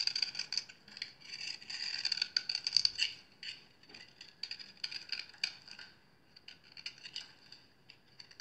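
Knife blade cutting into a dry bar of soap: crisp scraping and crackling as the soap crumbles into flakes. It is dense for the first three seconds, then breaks into sparser, separate crackles.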